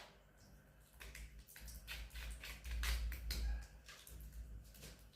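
Light irregular scrapes and taps of a kitchen utensil as strawberry jam is scooped and spread over tart dough, busiest around the middle.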